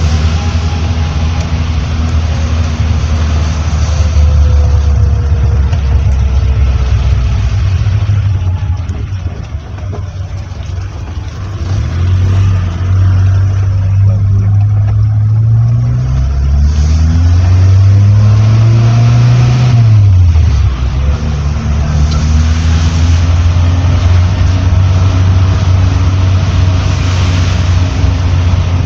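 Motor vehicle engine running on the move, over a steady hiss. In the middle its pitch rises twice as it accelerates, then it drops sharply about two-thirds of the way through.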